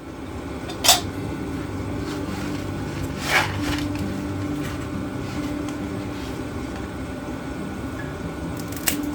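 A steady low hum, like a motor running, with sharp knocks about one second and three seconds in and another near the end.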